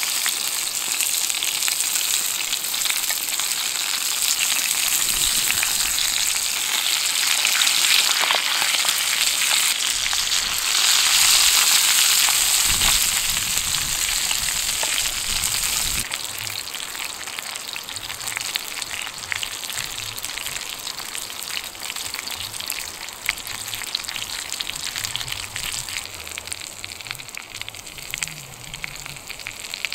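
Boerewors sausage and potatoes sizzling in a frying pan over a wood fire, a dense crackling hiss. The sizzle is loudest in the middle, drops suddenly about halfway through, and then goes on quieter with scattered pops.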